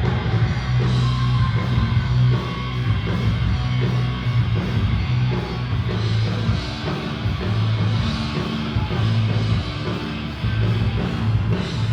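Live rock band playing: distorted electric guitar, bass and drum kit in a steady rhythm, heard loud through a phone-style recording.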